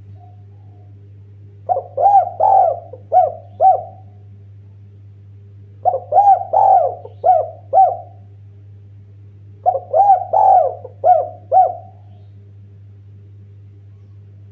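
Spotted dove (derkuku, tekukur) cooing its song in three phrases, each a run of about five arched coos, about four seconds apart. A steady low hum runs underneath.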